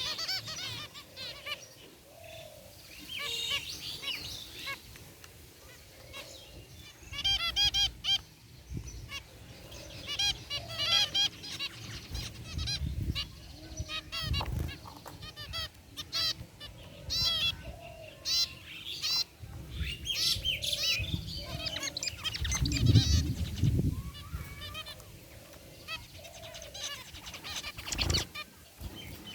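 A flock of zebra finches calling: many short nasal, honking beeps and chirps overlapping and repeating throughout. A few low thuds and rumbles come through, the loudest about two-thirds of the way in.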